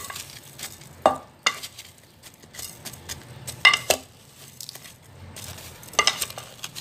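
Wooden spoon stirring carrot pieces coated in granulated sugar in a metal pot, with several sharp knocks of the spoon against the pot's side between stretches of scraping.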